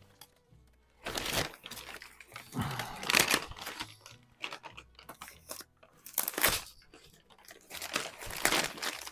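Packing wrap being pulled and torn off by hand, in several irregular bursts.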